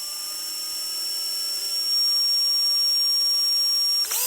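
Small electric drill running at steady speed with a high whine, its bit slowly boring a hole through the side of a carbon fishing pole section. It gets louder about halfway through, cuts out briefly near the end and starts again, rising in pitch.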